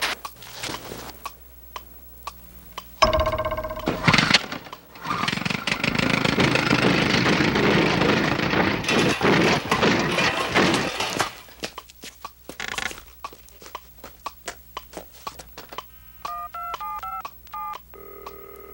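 Cartoon sound effects of chaos. Scattered ticking clicks give way about three seconds in to a sudden loud crash with a pitched clang, followed by several seconds of dense crashing and clattering, then more scattered clicks. Near the end come push-button telephone dialling tones and a steady ringing tone on the line.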